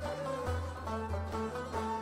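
Instrumental background music: a plucked-string melody over a steady low bass beat.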